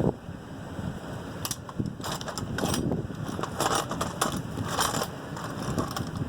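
Hard objects clattering, knocking and scraping as things are rummaged through and moved about by hand, in an irregular run of clicks and clunks.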